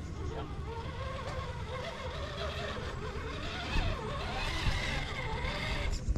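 Electric motor and gear drive of an Axial SCX10 II Jeep Cherokee RC scale crawler whining as it crawls up out of a dirt pit. The whine rises in pitch and grows louder from about the fourth second, over a steady low rumble.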